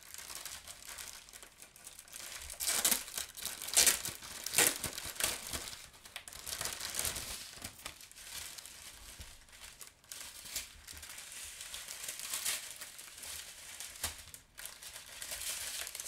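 Clear plastic wrapping and small plastic bags of diamond-painting drills crinkling as the bundle is unwrapped and the packets handled, loudest about three to five seconds in.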